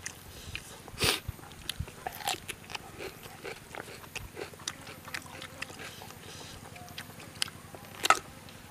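Close-up chewing and lip-smacking of a person eating rice by hand, with many small wet mouth clicks and two louder smacks, one about a second in and one near the end.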